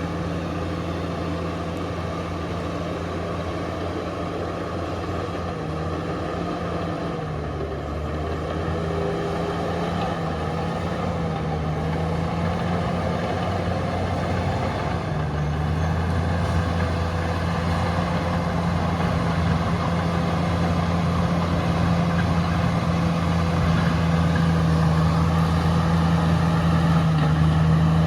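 Komatsu D68ESS crawler bulldozer's diesel engine running steadily, its note shifting a few times and growing gradually louder.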